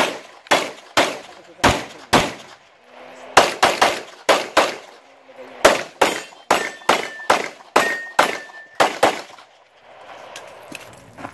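A rapid string of semi-automatic pistol shots, about twenty, fired singly and in quick pairs and runs, stopping about nine seconds in.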